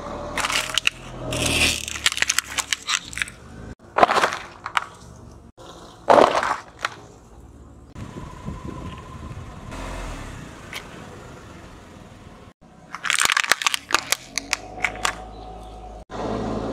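A car tyre rolling over small objects and crushing them: several separate runs of sharp cracks and crunches, with a quieter, steadier stretch in the middle.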